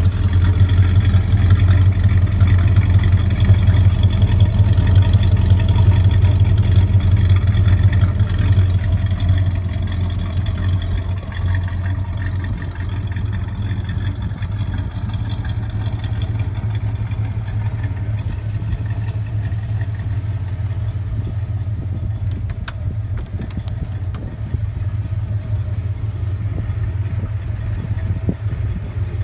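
1965 Pontiac GTO's 389 V8 idling steadily. It is louder for the first eight seconds or so, then quieter and even.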